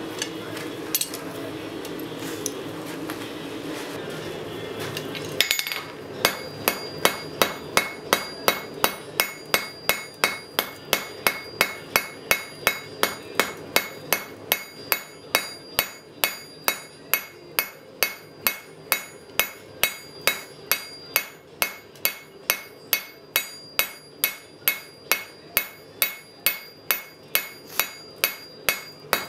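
Blacksmith's hammer striking a red-hot bar on an anvil to taper its end. The blows are steady, about two a second, and each one gives a bright ring from the anvil; they begin about five seconds in. Before the hammering there is a steady rushing noise.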